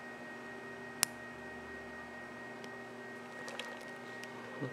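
Faint steady room hum, with one sharp click about a second in and a few faint ticks later as small watch band parts and tools are handled on a table.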